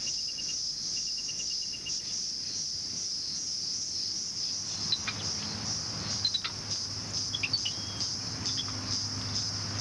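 Steady, high-pitched drone of forest insects, with a quick run of ticks in the first two seconds and scattered short bird chirps from about halfway on.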